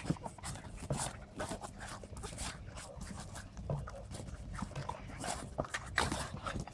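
Several Boston terriers playing rough together, panting, with a string of short, sharp noises throughout.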